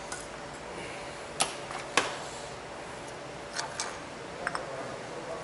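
About five sharp metal clicks and clinks of hand tools being handled, spread out and irregular. The loudest two come about a second and a half and two seconds in, with lighter ones later.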